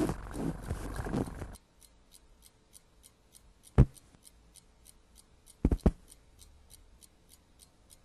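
A cartoon cat's voiced grumbling cuts off about a second and a half in. A clock then ticks quietly, about three ticks a second, broken by one sharp knock near four seconds and a quick double knock about two seconds later.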